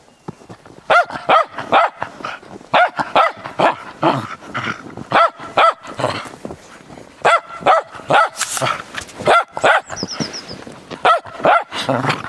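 Cairn Terrier barking over and over: short, sharp barks in quick runs of two or three, starting about a second in and carrying on throughout.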